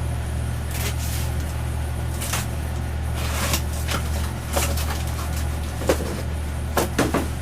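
Cardboard boxes and packaging being handled and unpacked: several short rustles and knocks, the sharpest near the end, over a steady low hum.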